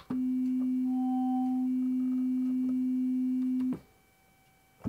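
Homemade ATtiny85-based synthesizer holding one steady, nearly pure tone for about three and a half seconds, then cutting off. A faint higher tone sounds briefly about a second in.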